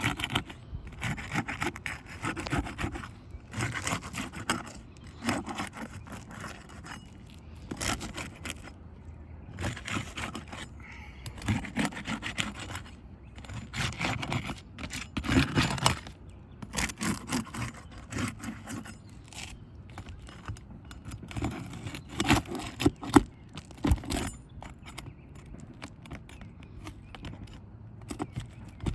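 Irregular scraping and rubbing strokes of something hard worked against a surface, stopping and starting every second or so.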